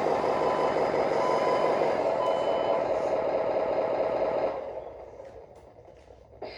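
Radio-controlled construction model running: a steady, fast-pulsing mechanical drone that dies away from about four and a half seconds in, followed by a short click near the end.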